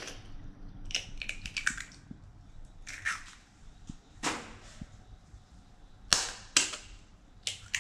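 Hen's eggs being cracked open with a metal fork: a series of sharp taps and cracks of shell, some in quick runs, with a louder pair about six seconds in.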